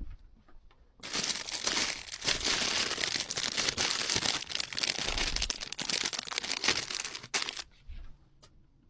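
Plastic packaging crinkling and rustling as it is handled, from about a second in until near the end, followed by a few light clicks.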